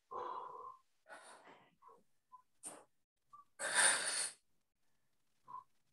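A man's heavy, effortful breathing: short forceful breaths and exhales while holding side plank dips, the loudest about four seconds in.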